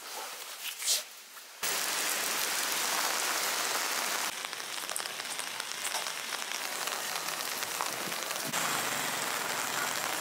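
Steady hiss of rain falling on a wet street, cutting in abruptly about a second and a half in after a few faint rustles.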